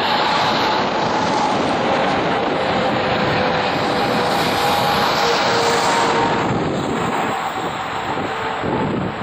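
The twin General Electric GE90 turbofan engines of a Boeing 777-300ER on final approach, a loud, steady jet roar with a couple of whining tones through it, easing a little near the end as the airliner moves away.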